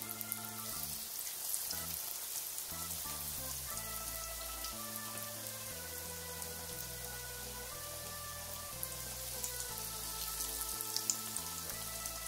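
Breaded eggplant slices sizzling and crackling in hot oil in a frying pan, with sharper pops near the end as more slices go in. Background music with held notes plays underneath.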